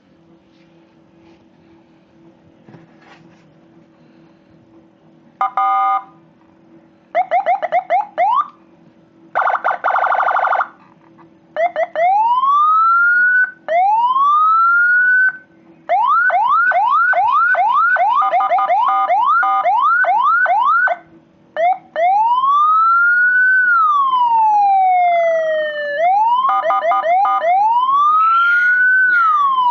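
Vehicle electronic siren run through its tones: after a low steady hum, about five seconds in it gives a short horn blast, quick yelps, a buzzy horn, slow rising wails, rapid repeated yelps and a long rise-and-fall wail. Loud.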